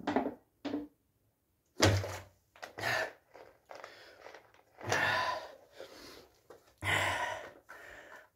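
A man gulping water from a plastic bottle, a few swallows about half a second apart, then a loud breath out after drinking and several more heavy breaths and handling knocks.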